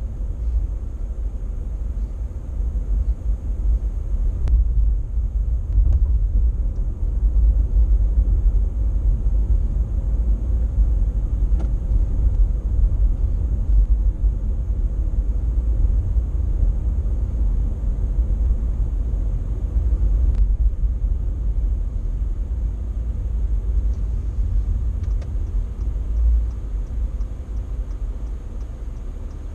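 Steady low rumble of a car on the road, heard from inside the cabin through a dash cam: road and engine noise.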